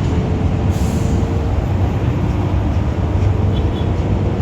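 Steady low engine rumble at a constant level, with a faint steady whine above it.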